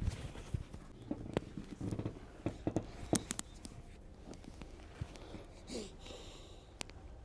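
Handling sounds of a hands-on chiropractic treatment: a scattered series of short, quiet clicks and taps, bunched between about one and three and a half seconds in, with one more near the end, over low rustling. No loud crack.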